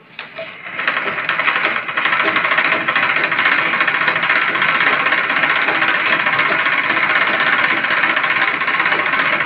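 Domestic sewing machine stitching a picot edge, starting up about half a second in and running steadily at speed from about two seconds in.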